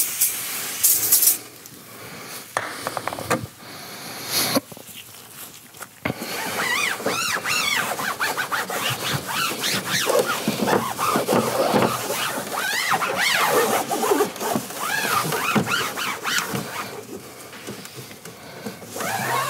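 An aerosol foam cleaner hisses briefly at the start, with a couple more short hisses in the next few seconds. Then a microfibre cloth wipes over the foam-covered plastic door trim in repeated strokes, squeaking with many short squeaks that rise and fall in pitch.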